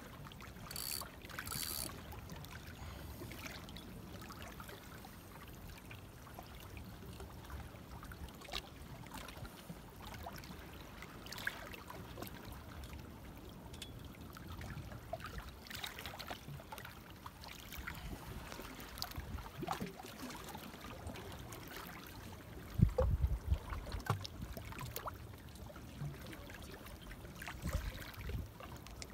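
Small sea waves lapping and trickling against the rocks of a stone breakwater, with scattered faint clicks. About three-quarters of the way through there is a short burst of low rumbling.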